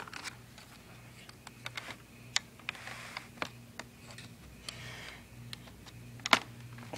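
Scattered small plastic clicks and knocks from handling a Roomba battery in and around its battery compartment, with one sharper knock near the end. A faint steady hum runs underneath.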